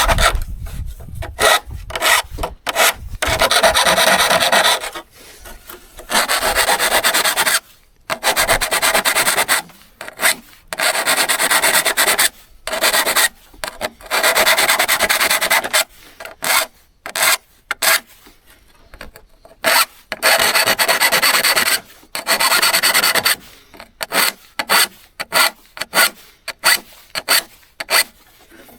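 Repeated abrasive hand strokes on an old hand saw's steel blade, scraping back and forth in runs of a second or two with short pauses. In the last few seconds the strokes turn shorter and quicker.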